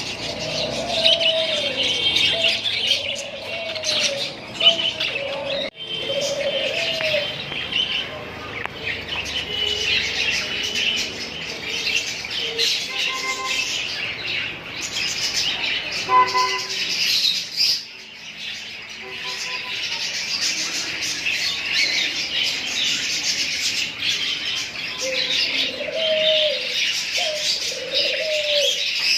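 A group of lovebirds chattering and chirping continuously in high, busy calls, with a dove cooing in a repeated low phrase during the first several seconds and again near the end.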